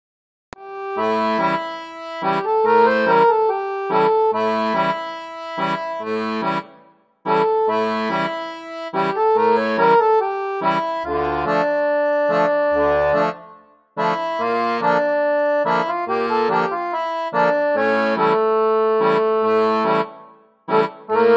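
Background instrumental music: a melody in phrases of about seven seconds, with short breaks between them.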